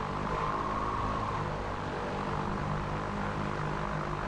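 Pipistrel Velis Electro's electric motor and propeller turning at low taxi power: a steady low hum and rush of air, with a thin high electric whine over the first couple of seconds.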